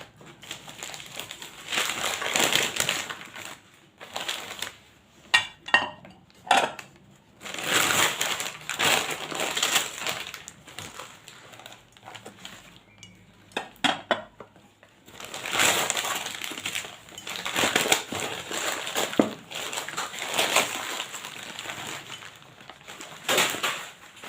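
Packaging being crinkled and pulled off new plates and bowls, in long rustling stretches, with a few sharp clinks of the dishes touching.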